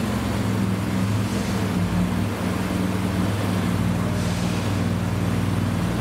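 Classic car engine running at a steady idle, a low even note with no revving.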